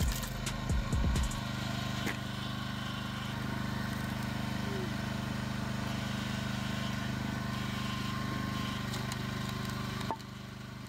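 A heavy machine's engine running steadily, with several sharp knocks in the first second and a half; the engine sound drops away abruptly near the end.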